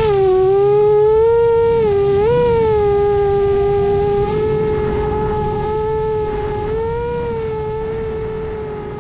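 7-inch FPV quadcopter's motors and propellers whining steadily in flight. The pitch swells and dips briefly with throttle about two seconds in and again around seven seconds, and the whine fades a little toward the end.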